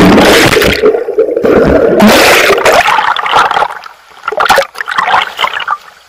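Water splashing and gurgling loud and close against the camera's microphone as a swimmer moves through a river pool. A long rush of water noise for the first three seconds or so, then a few shorter splashes.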